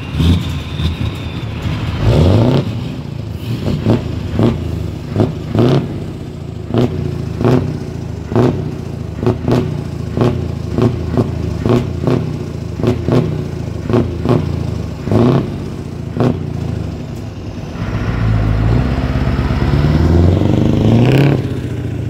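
Scania truck engine through an open straight pipe, blipped again and again in short throttle stabs, about one or two a second, over a steady low idle. Near the end the revs are held up as the truck pulls away.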